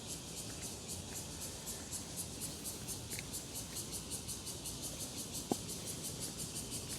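Insects on the wooded mountainside calling in a fast, even, high-pitched pulse of about five beats a second. There is a single short click about five and a half seconds in.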